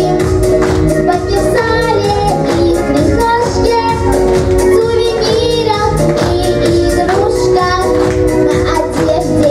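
A child singing a pop song over a backing track with a steady beat.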